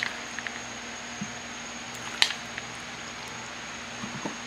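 A metal spoon scooping diced raw ahi from a bowl into a halved coconut shell: a few faint taps and clicks, the sharpest about two seconds in, over a steady low hum.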